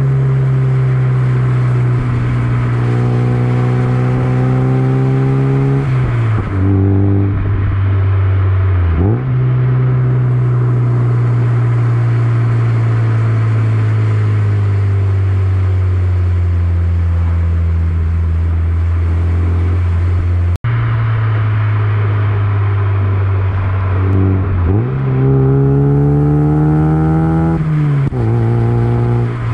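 Mazda MX-5 Miata's four-cylinder engine and exhaust running under way, holding a steady drone at cruising revs. A few times it dips briefly in pitch and climbs back, as the car shifts gear or lifts off and back onto the throttle.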